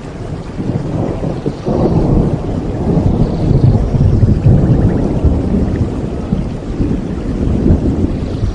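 Steady rain with a long roll of thunder. The thunder swells suddenly a little under two seconds in, rumbles loudest for a few seconds and then slowly dies away, with a smaller swell near the end.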